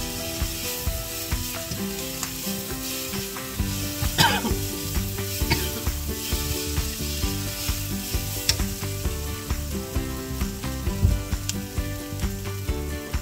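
Tempe strips frying in sweet soy sauce in a non-stick frying pan, sizzling steadily as a slotted spatula stirs and scrapes through them. Background music plays underneath.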